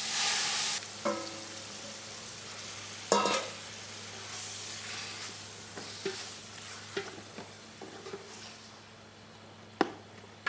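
Food frying in hot oil in a pan, a steady sizzle that fades toward the end, with a few sharp metal clanks of a utensil against the pan, one of them ringing.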